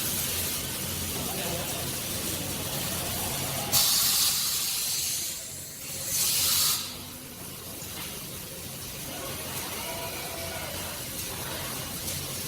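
Steady factory machinery noise from an automated door-frame welding line, broken twice by loud hissing bursts: a longer one a little under four seconds in and a shorter one about two seconds later.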